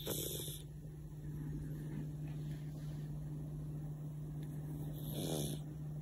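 Sleeping cat snoring through a nose stuffed up by a cold. There are two raspy snores, one at the start and one about five seconds later, and the second has a fluttering rattle.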